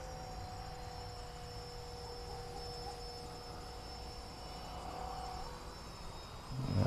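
Faint, steady hum of the RC A-10's twin 64 mm electric ducted fans at cruise throttle, with two steady tones; the upper tone drops out about five and a half seconds in. Crickets chirp faintly in the background.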